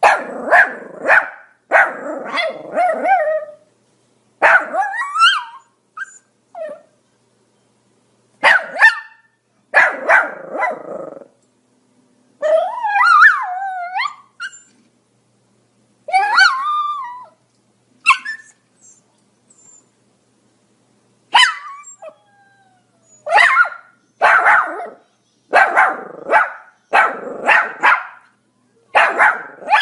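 Pomeranian barking in quick bursts of sharp, high barks with short pauses between them, with a few drawn-out whining calls around the middle.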